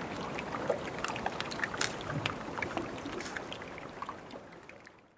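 Gentle water lapping, with a dense scatter of small clicks and pops, fading out near the end.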